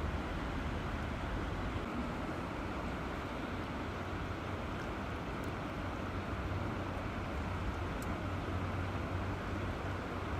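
River water flowing, a steady, even rushing with a low rumble underneath.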